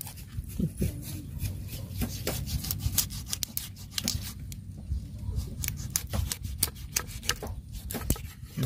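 Knife cutting a cleaned wallago catfish on a wet wooden board, with irregular scraping and tapping of the blade against the wood.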